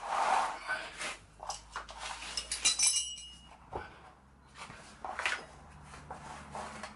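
Metal clinks and knocks from a motorbike wheel and tyre lever being handled, with a brief metallic ring about three seconds in.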